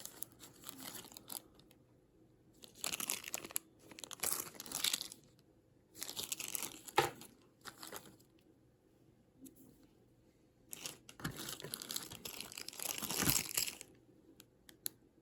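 Plastic packaging from small carburetor parts crinkling and tearing as it is handled and pulled apart, in three bursts of a second or two with quieter handling between.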